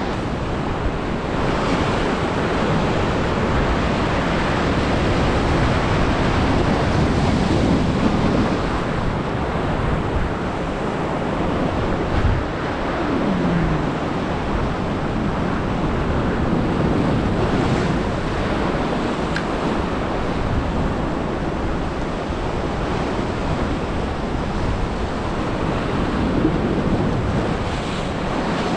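Sea surf washing and breaking steadily against an exposed Atlantic shore, with some wind on the microphone.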